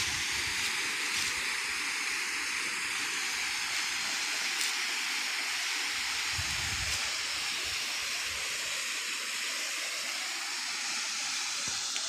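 Waterfall flowing down a sloping rock face into a pool: a steady, even rush of water. A brief low rumble sounds about six and a half seconds in.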